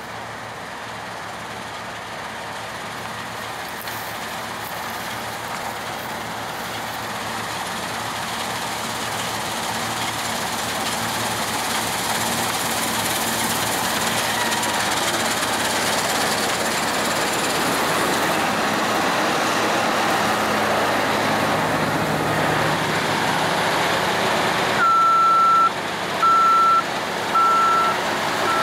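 New Holland TC56 combine harvester cutting wheat, its diesel engine and threshing machinery running steadily and growing louder as it comes closer over the first dozen seconds. Near the end a high electronic beeper starts, sounding about once a second.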